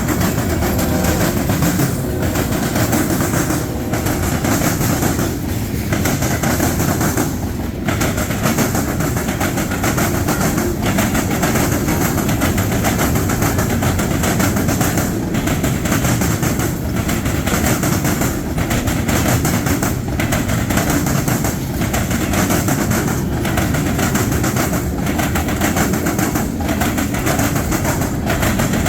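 Freight train rolling past, a steady loud noise of steel wheels running on the rails.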